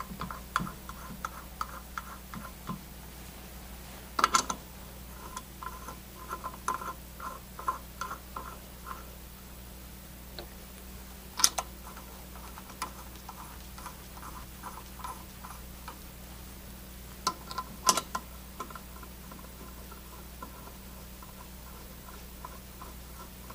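Brass piston assemblies being screwed by hand into a refrigerant charging manifold body, with runs of light ticking, a few ticks a second, as they turn. The ticking comes in stretches with pauses between them, and a few sharper clicks come about four, eleven and eighteen seconds in.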